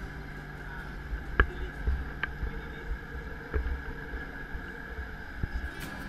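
Steady hum and low rumble of a driverless light-rail train car in motion, heard from inside, with a few sharp knocks, the loudest about a second and a half in.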